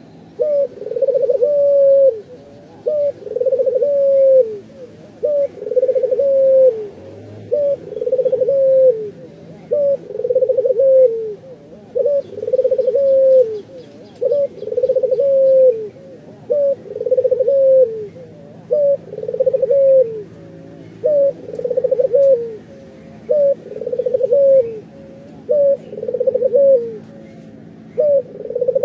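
Caged Barbary dove (ringneck dove) cooing repeatedly, about one call every two seconds. Each call is a short note followed by a longer coo that drops at the end.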